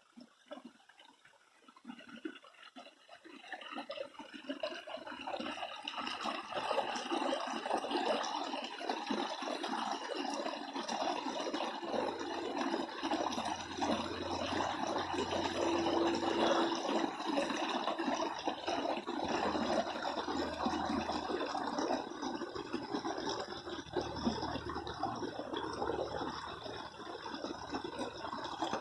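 Water rushing and splashing, building up over the first few seconds and then running on steadily.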